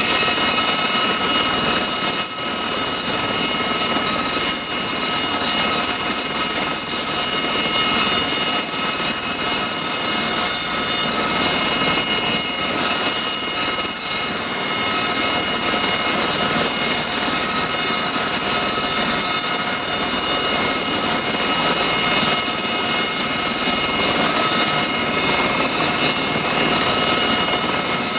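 Aérospatiale Gazelle helicopter's Turbomeca Astazou turboshaft running steadily on the ground with the main rotor turning, a high steady turbine whine over the rotor noise.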